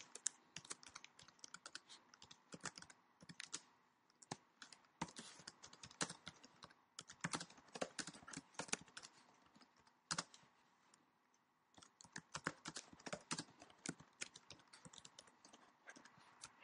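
Faint typing on a computer keyboard: irregular runs of key clicks, with a pause of about a second and a half just past the middle.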